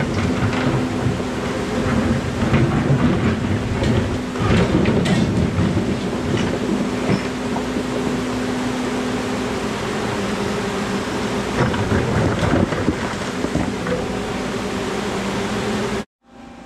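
Menzi Muck spider excavator's diesel engine running under hydraulic load, with rocks knocking and scraping as the bucket moves stones. The sound cuts out abruptly near the end.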